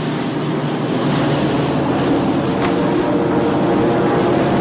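Propeller aircraft's piston engines running steadily, a dense drone that grows slightly louder in the first second and then holds.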